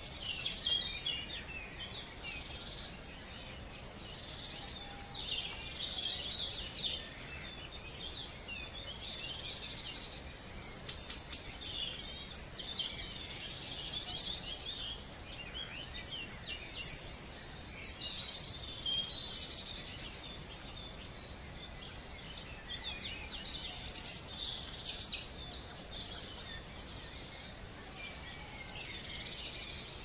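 Dawn chorus: several songbirds singing at once, short chirps, trills and whistled phrases overlapping throughout, over a faint steady low background noise.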